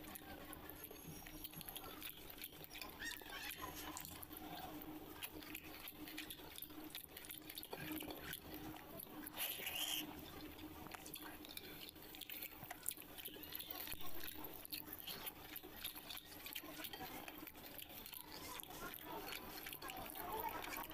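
Fingers squishing and mixing watery fermented rice (panta bhat) in a clay bowl, with small wet squelches and clicks, and mouth sounds of chewing by hand. A faint steady hum sits underneath.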